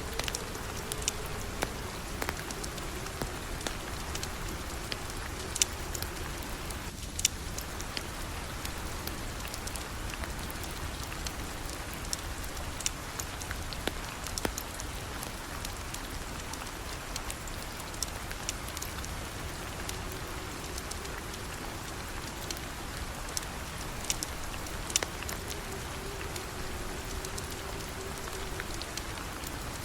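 Steady rain falling, with scattered sharp ticks of drops or crackles through it.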